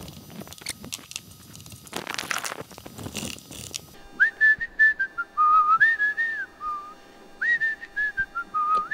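Scattered clicks and knocks of a socket wrench working on the roof bell's rusted mounting bolts. From about four seconds in, a person whistles a wandering tune in short phrases, louder than the tool sounds.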